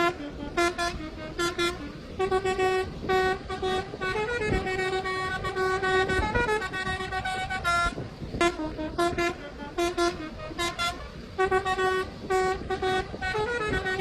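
Multi-tone 'telolet' musical horn playing a tune: clusters of short, quick toots alternate with longer held notes that step up and down in pitch, with short breaks between the phrases.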